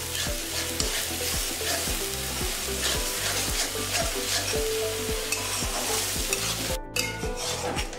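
Onion paste frying in oil in a metal kadai, sizzling while a metal spatula stirs and scrapes it in strokes about twice a second; the sound breaks off for an instant near the end.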